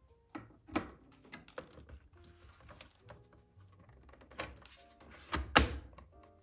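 Hard plastic clicks and knocks as vacuum cleaner attachments are pushed onto and taken off the holders of the vacuum's docking stand, about a dozen in all, the loudest a sharp double knock near the end. Faint background music with held notes underneath.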